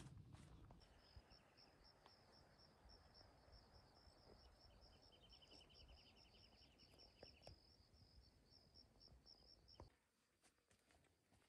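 Faint outdoor ambience of high-pitched chirping repeating about five times a second, with a quicker, lower trill joining in for a couple of seconds in the middle; it cuts off near the end.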